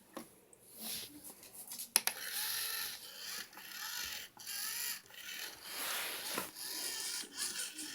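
Kitten playing: uneven scratching and rustling, with a sharp click about two seconds in.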